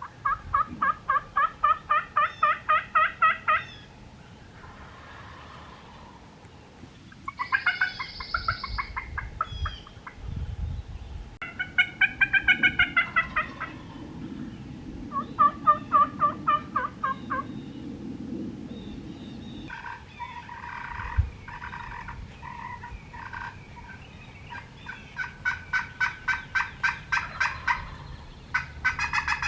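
Wild turkeys calling: runs of rapid repeated notes, about six series, the last the longest, from gobblers and a hen.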